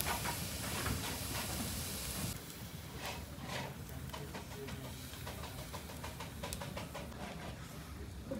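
Wood fire burning in the firebox under a metal water boiler: a steady hiss with crackles that cuts off about two seconds in, then quieter, with scattered crackles and pops over a low rumble.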